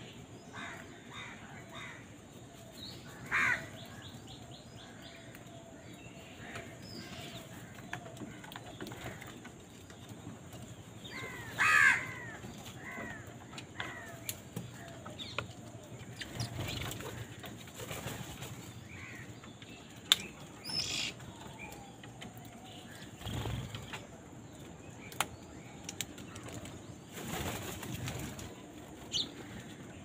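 A flock of house crows and house sparrows feeding together, with scattered sparrow chirps, a few crow caws (the loudest about 12 seconds in) and several brief flurries of wingbeats as the birds hop and flap around.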